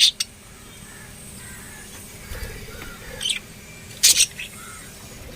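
Lovebirds giving short, shrill, harsh chirps: one at the start, one a little past three seconds in and a louder double call about four seconds in, with fainter, softer calls between.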